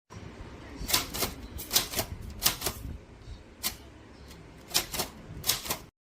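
Mechanical typewriter being typed on: about a dozen sharp key strikes at an uneven pace, several in quick pairs, over steady low background noise.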